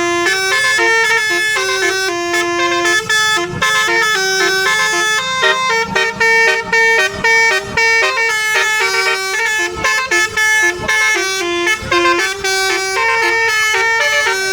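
Bus telolet horn, a multi-trumpet air horn, playing a loud melody of quick stepped notes with short gaps between them, often sounding two pitches at once like a chord.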